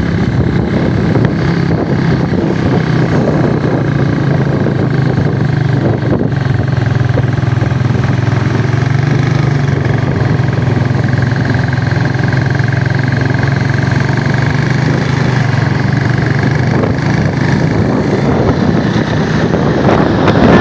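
Bus engine running at a steady speed: a loud low drone with a faint steady whine above it. The drone eases off about three-quarters of the way through.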